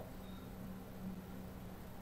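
Quiet room tone with a faint steady low hum.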